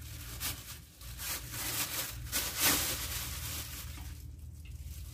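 Thin plastic bag crinkling and rustling as a cauliflower is unwrapped from it, loudest a little past halfway, over a steady low hum.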